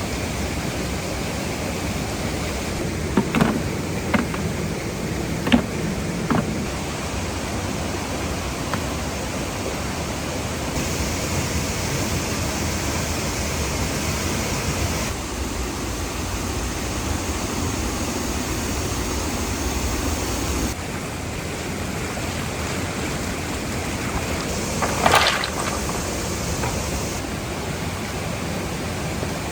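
Steady rushing of a waterfall. A few short knocks come a few seconds in, and a louder one near the end.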